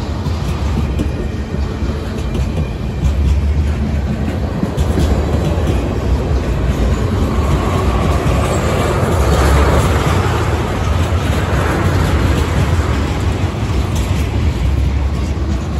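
Freight cars (tank cars, a boxcar and covered hoppers) rolling past close by: a steady rumble of steel wheels on the rails.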